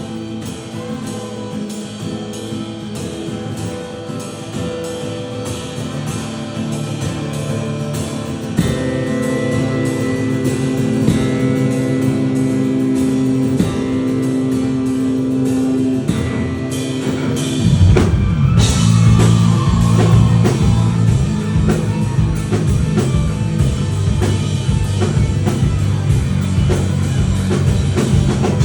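Rock band playing live on drums, guitars and bass. A quieter passage of held notes over a steady beat builds until, about 18 seconds in, the full band comes in louder and heavier with a cymbal crash.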